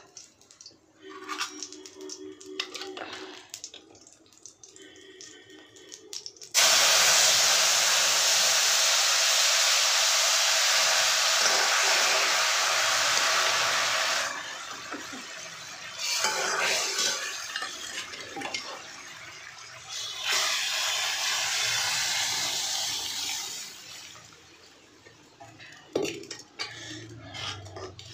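Hot oil in an iron kadhai sizzling loudly as the wet ground masala goes in for the tempering. It starts suddenly several seconds in, dies down after about eight seconds, and flares up twice more later.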